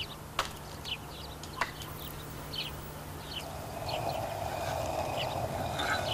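An axe chopping wood: four sharp knocks in the first two seconds, the second the loudest. Small birds chirp throughout, and from about halfway a steady background noise grows louder.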